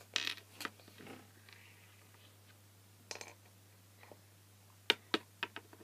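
Small toys being handled on a wooden toy shelf: scattered light clicks, taps and rustles, with a few sharper taps near the end.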